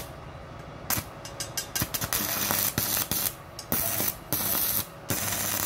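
Stick (MMA) welding arc from a Basic ARC 160 mini inverter welder set to full current. The electrode sputters and snaps in sharp crackles as it is struck for the first two seconds, then settles into a steady crackle from about two seconds in, cutting out briefly a few times.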